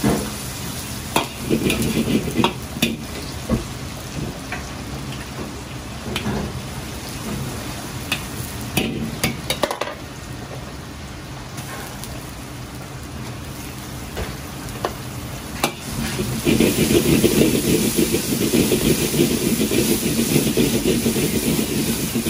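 Stir-frying in a carbon-steel wok: a metal ladle knocks and scrapes against the wok while Sichuan peppercorns sizzle in hot oil. About sixteen seconds in, after sliced scallion goes in, the frying turns louder and steadier.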